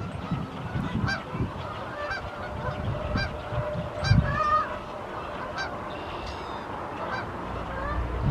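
A dense chorus of large waterbirds calling: many short, honking calls overlapping in layers, with no single bird standing out.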